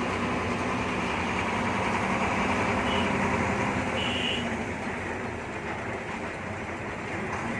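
Bus engine running and road noise heard from inside the cabin while driving, with a brief high beep about four seconds in.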